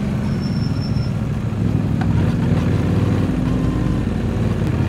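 Triumph Speed Twin 900's 900 cc parallel-twin engine, on its stock exhaust, running steadily at a cruise.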